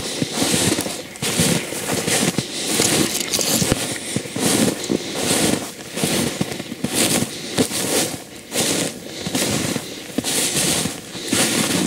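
Footsteps crunching through snow at a steady walking pace, about one step every second or less, with crackling of twigs and spruce branches brushing past.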